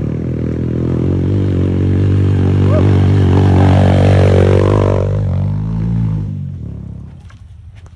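A dirt bike's engine running as the motorcycle rides slowly past. It grows louder to a peak in the middle, then fades away about six seconds in.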